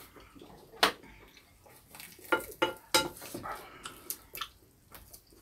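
Spoons and chopsticks clinking and scraping against ceramic bowls during a meal: several separate sharp clinks spread over a few seconds.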